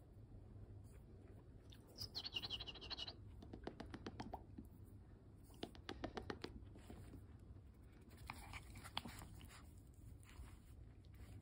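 A small Pomeranian–Chihuahua mix mouthing and nibbling a person's fingers in play. It comes through as faint scratching and clusters of soft clicks, with a brief high-pitched squeak about two seconds in.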